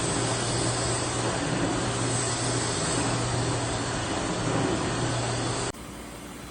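eufy X10 Pro Omni robot vacuum running: a steady rushing noise with a low hum. It cuts off abruptly near the end, leaving a quieter steady hiss.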